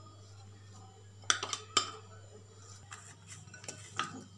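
A wooden spoon knocking against a glass mixing bowl of chopped vegetables: a few sharp clinks, the loudest two close together about a second and a half in and another near the end.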